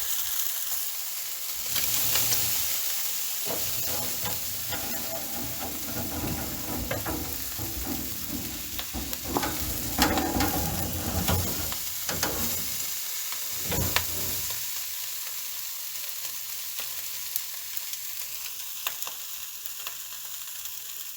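Kebabs, pork rib and boerewors sizzling on a barbecue grill, a steady high hiss. Between about two and fourteen seconds in, knocks and clatter of the meat being turned on the grill.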